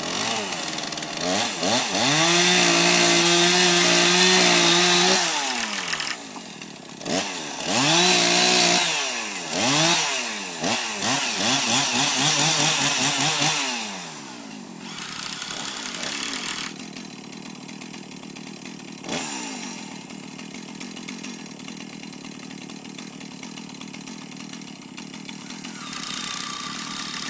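Chainsaw engine revved up in three loud bursts over the first half, the first held at a steady high pitch for a couple of seconds before dropping off; after that only a much quieter steady noise remains.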